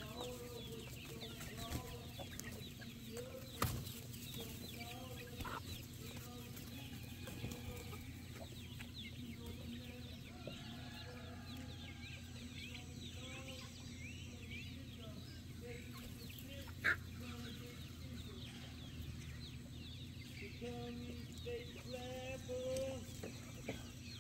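A flock of free-ranging chickens clucking softly and frequently as they forage. Two sharp clicks stand out, about 4 seconds in and again about 17 seconds in.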